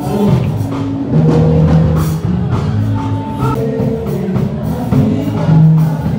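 Music with a drum beat and held melodic notes.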